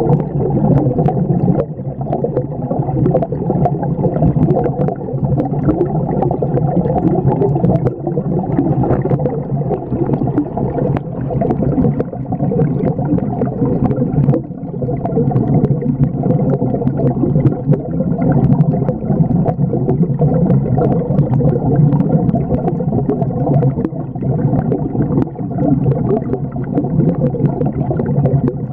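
Loud, muffled underwater rumble and gurgling of aquarium water picked up by a camera held submerged in the tank, with many small clicks and knocks throughout.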